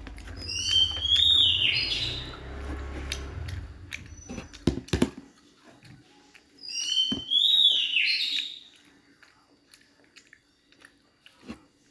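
A bird calling twice, about five seconds apart, each call a high whistled phrase of about a second and a half that steps up in pitch. Scattered small clicks and a few sharp knocks come between the calls.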